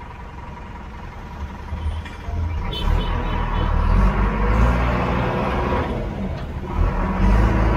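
JCB backhoe loader's diesel engine heard from inside the cab while driving on the road, its note rising and getting much louder about two seconds in as it works harder, then dipping briefly near the end before picking up again.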